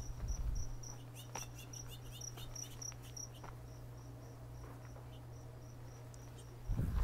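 A cricket chirping outdoors: a short high chirp repeated about three times a second, fading out about three-quarters of the way through. Low thumps near the start and near the end.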